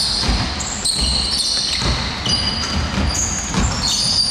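Basketball dribbled on a hardwood court, a series of low thumps, with sneakers squeaking on the floor many times at different pitches, in a large sports hall.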